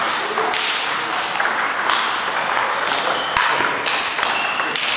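Table tennis ball clicking back and forth between bats and table during a doubles rally, a quick series of sharp clicks.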